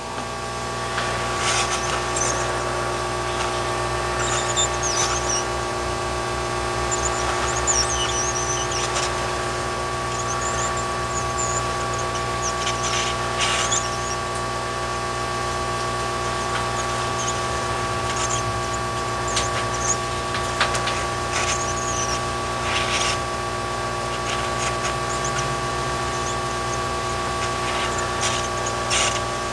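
Handheld heat gun running steadily, its blower motor giving a constant hum and whine, as it shrinks heat-shrink tubing over wire splices. Faint high chirps and a few light clicks come and go over it.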